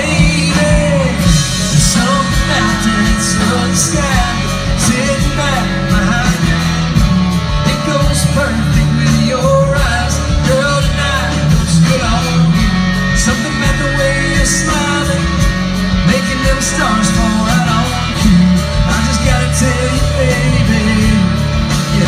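Live country band playing a song through a large PA, heard from within the crowd: strummed acoustic guitars, electric guitar, bass and drums under a singing voice.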